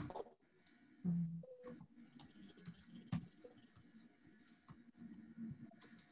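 Faint, scattered clicks of typing on a computer keyboard, with a brief low hum about a second in.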